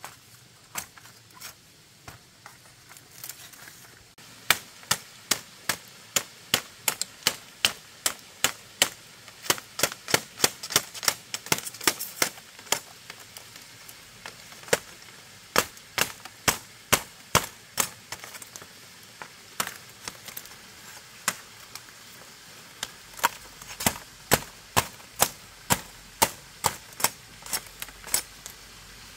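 Hammer blows driving nails into wood or bamboo: sharp strikes about two to three a second, in runs broken by short pauses.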